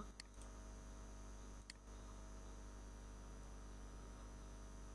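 Steady low electrical mains hum on the recording, with a few faint computer mouse clicks near the start and again just before two seconds in.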